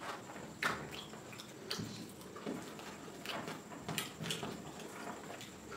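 Fingers mixing and squishing curry-soaked rice on a ceramic plate, with faint scattered taps and wet sounds about once a second.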